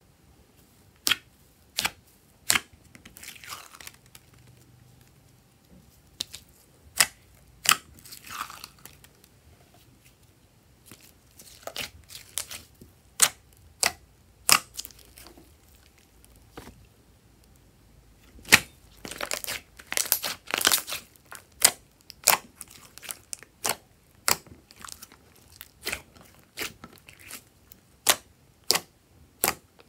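Hands pressing and poking a thick mass of slime: many sharp pops and clicks at irregular intervals, with short stretches of wet squishing, thickest about two-thirds of the way through.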